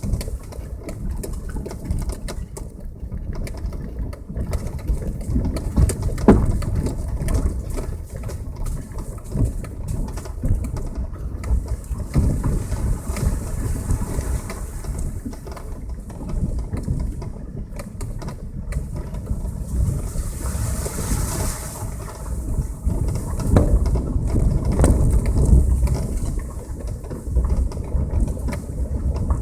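Passenger car driving, a steady low rumble of engine and road noise broken by many short knocks and jolts.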